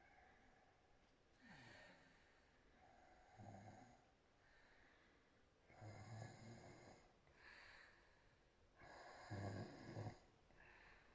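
A woman snoring faintly with her mouth open, four snores two to three seconds apart, the later ones louder.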